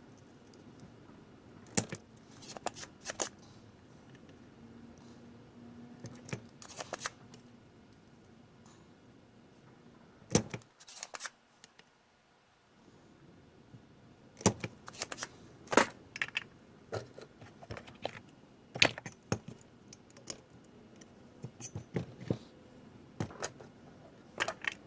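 Scattered sharp clicks and taps of small tools and parts being handled on a TV power supply board during a capacitor replacement, with a couple of seconds of near silence just under halfway through.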